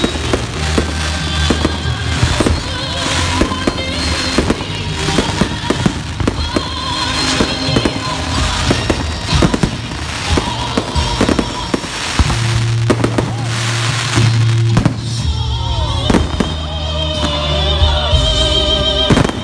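Aerial fireworks display: many bangs and crackling bursts in quick succession throughout. Loud music with a heavy bass plays under them.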